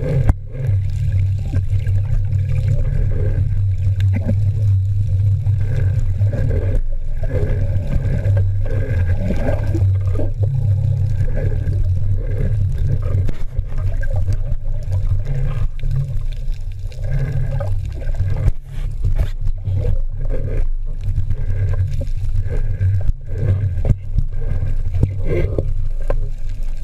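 Muffled underwater rumble of water moving against a waterproof action-camera housing as a freediver swims, with faint ticks and gurgles over a steady low drone.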